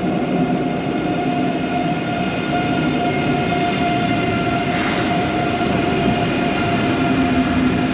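ICE high-speed electric train pulling into the platform: a steady electric whine at several pitches over the rumble of its wheels, with a faint short click about five seconds in.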